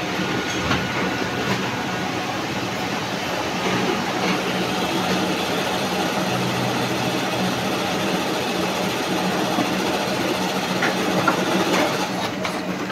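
Konica Minolta production colour laser printer running as it prints a full-colour test pattern: a steady mechanical hum and whir, with a few light clicks near the end as the sheet feeds out.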